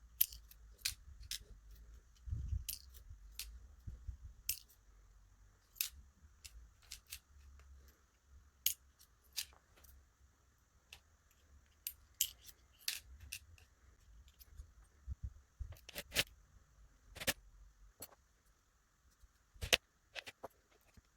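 Barrel driver pins being removed from the bible of an ASSA 600 pin tumbler lock and dropped into a tray: irregular small, sharp metal clicks, some in quick pairs.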